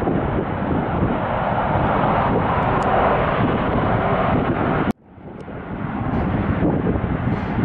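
Jet airliner engines running loud and steady, with wind buffeting the microphone. The sound cuts out abruptly about five seconds in and fades back up over a second.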